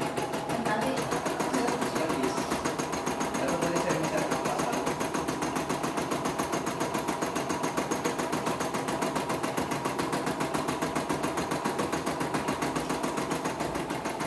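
CNY E960 computerized embroidery machine stitching a design, its needle running in a fast, even rhythm.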